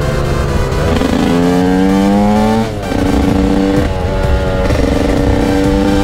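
TM Racing SMR 125 two-stroke single-cylinder engine pulling at full throttle: its pitch climbs for a couple of seconds, cuts briefly at a gear change nearly three seconds in, then runs on at a steadier pitch with small shifts.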